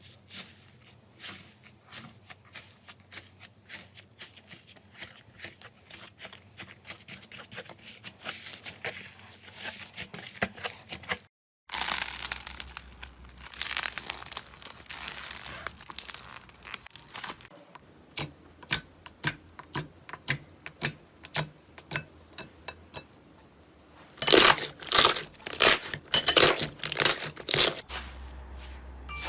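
Slime being squeezed, stretched and poked by hand, giving runs of sticky clicks and crackles as air pockets pop. It is quieter at first, then louder and denser after about 12 s and again after about 24 s.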